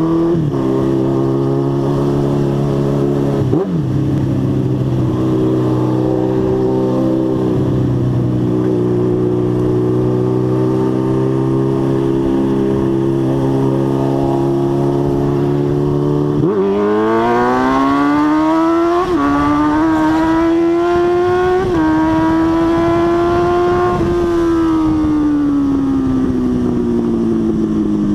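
Suzuki Bandit 650 N's inline-four engine, loud, running steadily at low revs with a brief dip about four seconds in. About halfway through it is revved up and held at raised revs with a couple of small blips, then the revs slowly fall away near the end.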